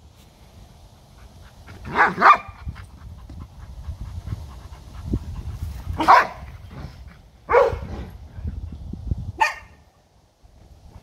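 Dog barking: a quick pair of barks about two seconds in, then three single barks spaced out over the next seven seconds.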